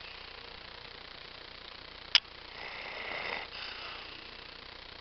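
A dog snoring in its sleep, with one weaker snore about two and a half seconds in. Just before that snore there is a single sharp click, the loudest sound.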